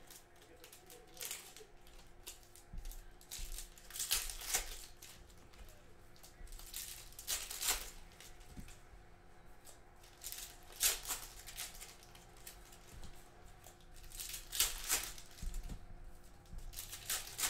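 Donruss football card packs being opened by hand: foil wrappers crinkling and tearing and cards being handled, in short crisp bursts every one to three seconds over a faint steady hum.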